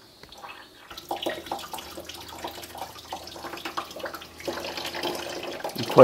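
Coolant (distilled water with UV dye) pouring out of a disconnected coolant hose beside the oil cooler, draining the coolant left inside the engine that the radiator drain does not empty. The flow starts about a second in and gets heavier about four and a half seconds in.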